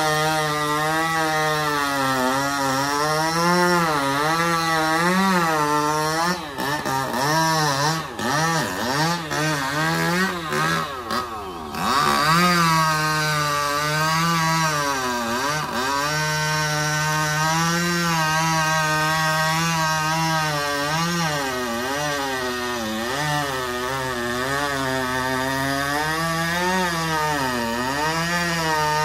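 Two-stroke chainsaw cutting trembesi wood, its engine pitch sagging under load and recovering. Between about six and twelve seconds in the revs drop and pick up several times, then the saw settles back into a steadier cut.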